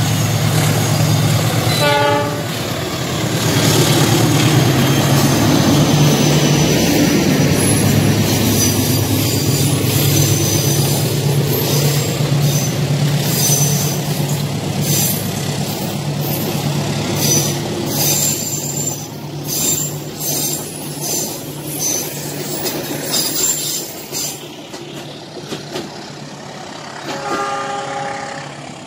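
Diesel passenger train passing close by: the locomotive's engine drones steadily and its horn sounds briefly about two seconds in. The coaches' wheels then clatter over the rail joints in a run of sharp clicks, and the sound fades near the end.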